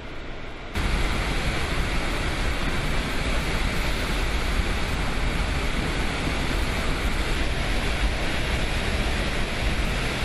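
Dam spillway discharging floodwater: a steady, heavy rush of water that jumps suddenly louder about a second in and then holds level.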